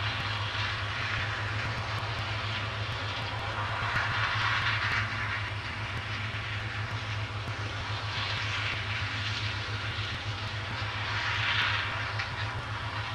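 Combine harvester running at a distance, a steady low engine drone, with a hissing rush that swells and fades three times.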